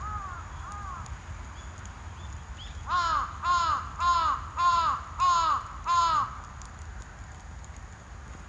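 A crow cawing: two fainter caws at the start, then a run of six loud caws about half a second apart from about three seconds in to just past six seconds.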